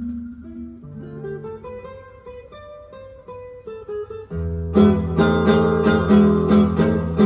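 Guitar music from a vinyl record playing over hi-fi loudspeakers. Soft single plucked notes give way, about four seconds in, to a sudden louder passage with deep bass and strong, evenly spaced strikes about three a second.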